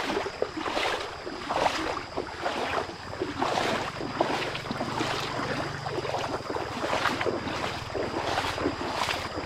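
Feet wading through a shallow, muddy stream, the water splashing and sloshing with each stride, a step about every second.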